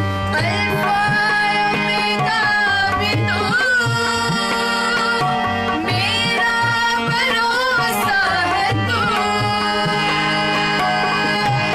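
A woman singing a devotional worship song, her voice sliding through ornamented phrases over a held harmonium drone and a steady tabla rhythm.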